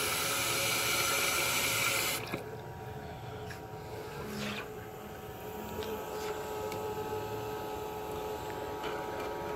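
Kitchen tap running into a stainless steel sink, pouring over a swamp cooler's plastic filter to soak it, then shut off suddenly about two seconds in. After that it is much quieter, with a few faint clicks.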